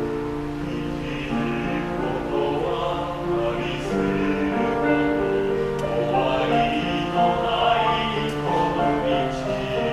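Male vocal ensemble of six singing a Japanese ballad together in harmony, with long held notes.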